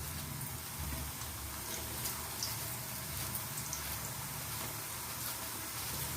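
Nendran banana chips frying in hot oil in a pan: a steady sizzle with small scattered crackles.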